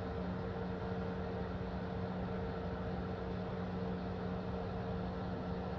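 Steady background hum with two unchanging low tones over a faint hiss; nothing else happens.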